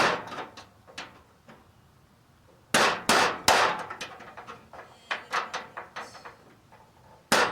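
Hammer blows on metal while knocking out the old tailgate latch of a pickup. A sharp strike at the start, a quick cluster of hard blows about three seconds in, lighter taps after, and another hard blow near the end, each with a short metallic ring.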